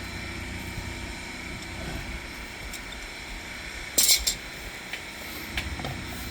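A sewer jetting machine's engine running steadily, with two sharp clacks close together about four seconds in and a few fainter clicks.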